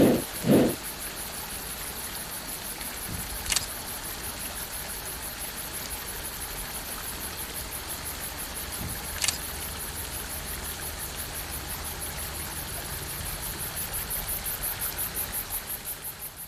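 Insects chirring steadily in a fast, even, high-pitched pulse, with two dull low thumps right at the start and two sharp clicks, one a few seconds in and one about nine seconds in. The whole sound fades out near the end.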